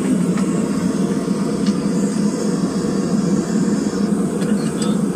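Propane gas forge burner running with a steady rushing noise, with a few light metal clicks and taps as the red-hot square bar is set in a vise.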